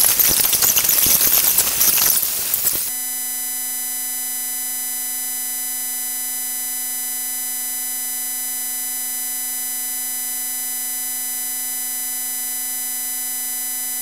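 Noisy hall ambience for about three seconds, then cut off abruptly by a loud, steady electronic buzz tone that holds unchanged, with nothing else audible under it.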